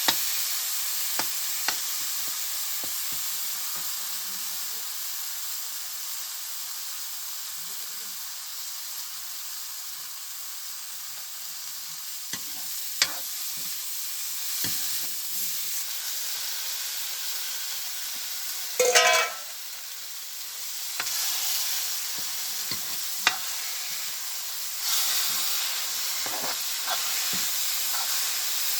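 Food sizzling as it fries in a pan, a steady hiss, with a utensil clicking against the pan now and then as it is stirred. A brief louder sound stands out a little past the middle.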